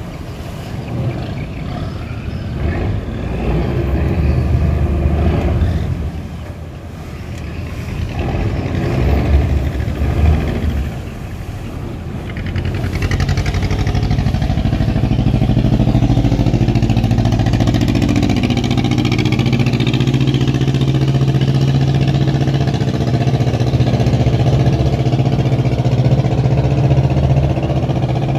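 A boat engine running on the river. It is an uneven low rumble at first, then from about 13 s in it settles into a steady, loud, low drone.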